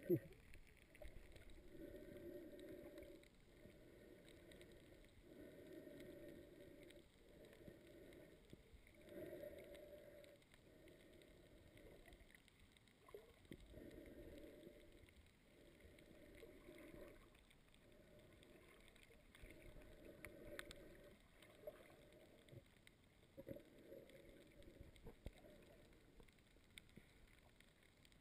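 Faint, muffled water movement heard through an underwater camera housing: soft swishing pulses in an uneven rhythm, about one every second or two, as the swimmer moves through the water.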